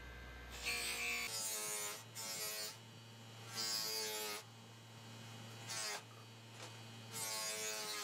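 Small bench grinder running with a steady hum while a brass lighter part is pressed against its spinning abrasive wheel in about five bursts of grinding. Each burst carries a whine that falls in pitch as it ends.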